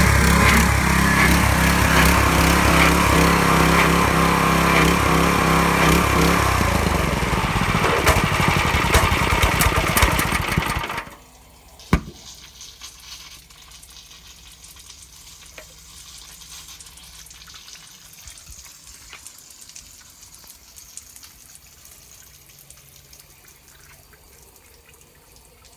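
Kodiak pressure washer's 7 HP gas engine running, its pitch sinking over a few seconds before it stops abruptly about eleven seconds in: the engine being shut down. A single sharp click about a second later as a lever on the engine is moved, then only faint trickling and dripping of water.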